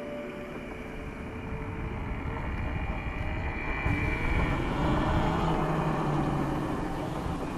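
Road vehicle noise: a steady rushing sound that grows louder about four seconds in, with a faint low hum in the later seconds.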